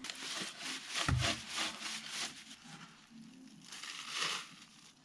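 Hand broom scratching over dry straw, dust and debris in a series of short sweeping strokes, with a soft thump about a second in. Near the end there is louder rustling and crinkling as the debris goes into a plastic bag.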